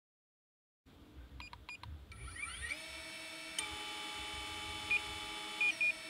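DJI Avata FPV drone starting its motors on the ground: a few short beeps, then a whine that rises in pitch as the motors spin up and settles into a steady idle whine, with a couple more short beeps near the end.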